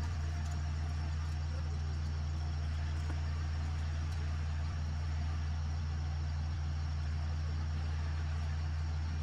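Tow truck engine running steadily, a low even hum with no change in pitch.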